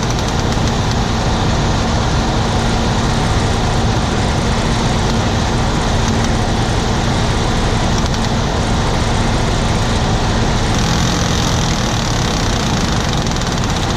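Harvest machinery's diesel engine running steadily under load, with a steady hum and a slight change in the low note about eleven seconds in.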